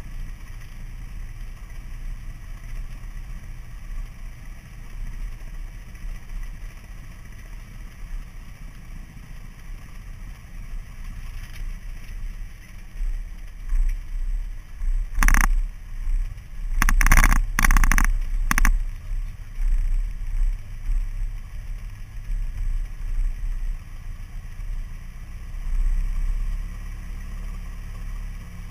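Single-engine light aircraft's piston engine idling steadily during taxi, heard inside the cockpit, with the propeller turning slowly. About halfway through there is a brief cluster of short, sharp clatters.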